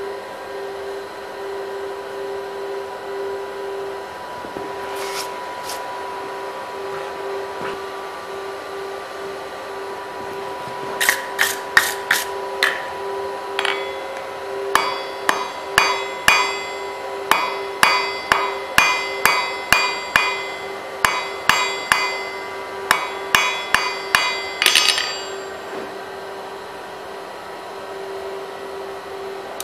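Hand hammer striking hot steel on an anvil while the corners of a square taper are forged in to make it octagonal. After a quiet stretch with a steady hum, a few blows come about eleven seconds in, then a run of about two ringing blows a second that stops a few seconds before the end.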